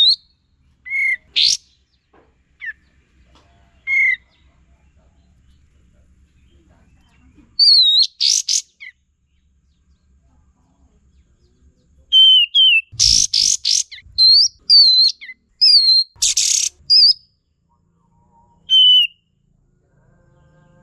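Kapas tembak bulbul calling in scattered phrases: short slurred whistled notes, some rising and some falling, mixed with brief loud harsh chattering bursts, with silent gaps between the phrases. The calling is densest in the second half.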